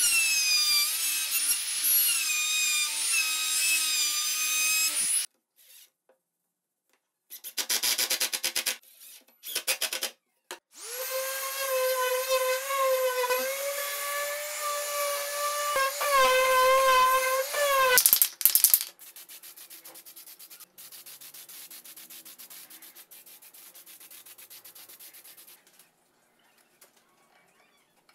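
A compact trim router runs with a high, pitched whine for about five seconds, routing a plywood edge. After a few short bursts of noise, a random orbital sander runs for about seven seconds on plywood, its pitch wavering, followed by a quieter steady hiss that stops near the end.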